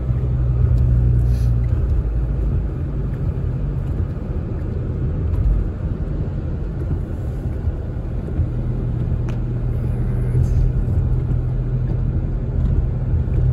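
Steady low rumble of a car's engine and tyres running on a wet road, heard from inside the cabin.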